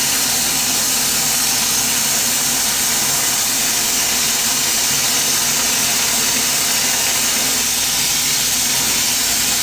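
Glassblower's gas bench torch burning with a steady hiss of the flame.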